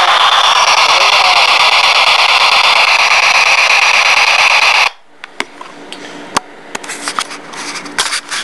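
P-SB7 spirit box sweeping radio frequencies through an external speaker: loud, steady static hiss. It cuts off suddenly about five seconds in, leaving faint scattered clicks and crackles.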